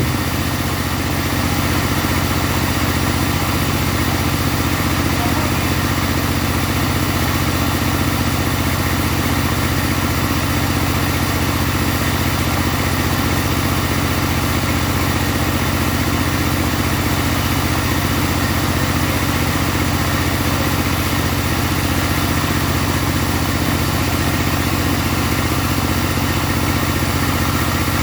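Mobile sawmill running steadily, its engine and saw making an even, unchanging drone.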